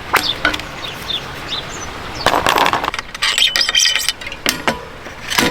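Clicks, knocks and a brief metallic ring of a front wheel being fitted into a mountain bike's fork. Faint bird chirps in the background.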